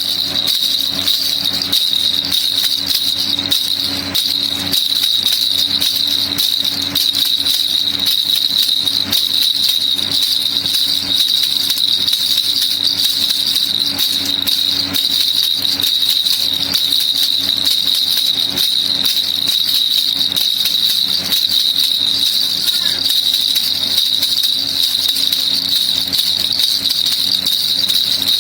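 Baby rattle (kilukilupai) shaken continuously in a fast, dense, even rattle, beginning abruptly.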